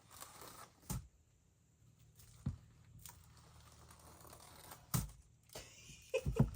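Scattered taps and clicks with light rustling from handling painting materials, with a quick cluster of knocks near the end.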